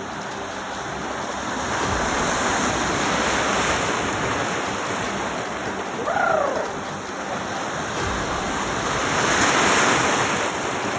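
Floodwater sloshing and rushing around a car's wheels and the legs of men wading as they push it through the flooded street, swelling and easing in waves. A brief pitched cry rises and falls about six seconds in.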